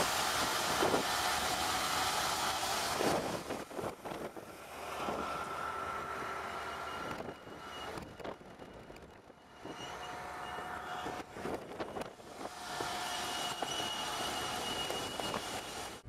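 Tractor pulling a rotary bed-forming machine through soil. The engine and implement give a steady noisy run with thin whining tones over it, and the level dips briefly about halfway through.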